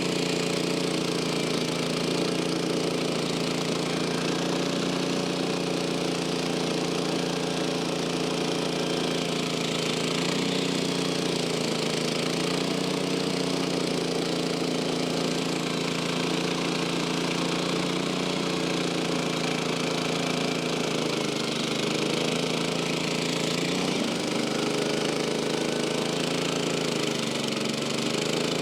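Small gasoline engine of a portable band sawmill running steadily while it saws a pine log. Its pitch dips and recovers a few times as the cut loads it.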